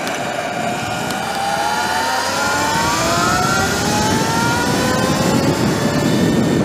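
Sur-Ron electric dirt bike's motor whining as it speeds up. Several tones rise in pitch together over a few seconds and then level off, over a steady rush of wind and road noise.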